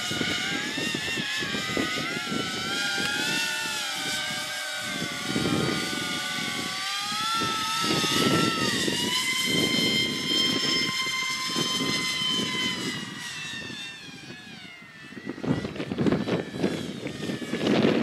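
Electric ducted fans of an FV-31 Cypher VTOL model jet whining in several pitches that shift and glide. The pitch drops about eight seconds in, holds steady for a few seconds, then fades. Gusty wind buffets the microphone throughout and is loudest in the last few seconds.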